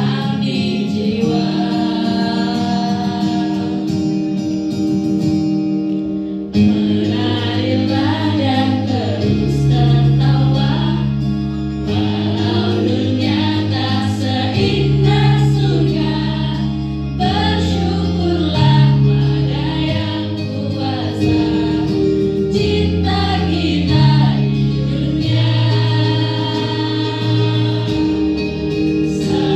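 A group of men and women singing in chorus over a backing track. A slow passage of held chords gives way suddenly, about six and a half seconds in, to a livelier rhythmic section with a moving bass line.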